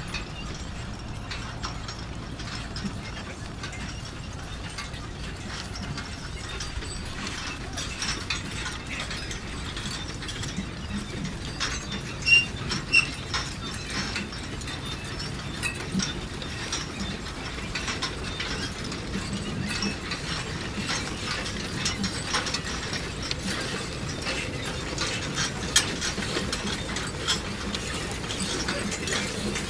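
Manure spreader running: a steady mechanical rattle of gears with many small clicks, and a few louder clanks about twelve seconds in and again near the end.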